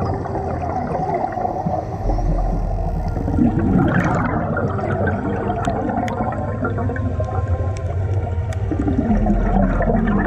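Underwater bubbling and gurgling from scuba divers' exhaled regulator bubbles rushing past the camera housing. It swells twice, about four seconds in and again near the end, and a few faint sharp clicks come through.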